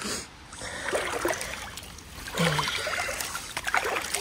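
Water in a shallow river being stirred and moved, with irregular knocks and clatter.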